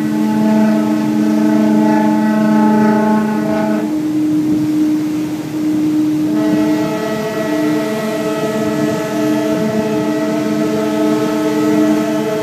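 Ferries' ship horns sounding long, overlapping blasts at two different pitches as the sister ships pass each other. The lower horn stops about four seconds in; a new, fuller blast starts about six seconds in and holds to the end.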